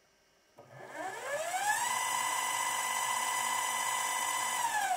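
Servo-motor, belt-driven spindle of a DIY micro lathe built from a CNC rotary axis, spinning up to 1000 RPM with a rising whine, running steadily, then starting to wind down near the end with a falling whine.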